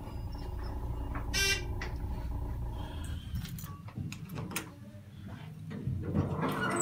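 ThyssenDover traction elevator car travelling with a steady low hum, a short electronic beep about one and a half seconds in, then a few sharp clicks as the car-call buttons are pressed.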